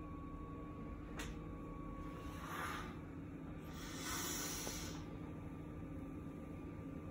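A woman breathing out heavily twice over a low steady room hum: a short breathy exhale about two and a half seconds in, then a longer, louder one around four seconds in. A faint click comes about a second in.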